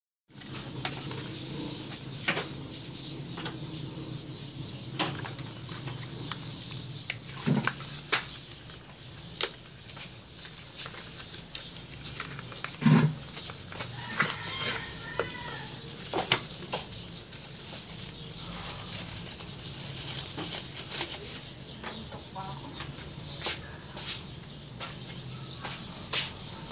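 Hands handling plastic packaging and a cardboard box, rustling with scattered clicks and taps, over a steady background hiss; near the end, the plastic phone clamp of a selfie-stick monopod is handled and clicked.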